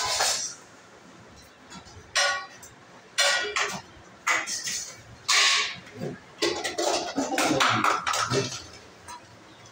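Several short animal calls, each a fraction of a second, in the first half, followed by a denser stretch of clinking and rustling handling noise.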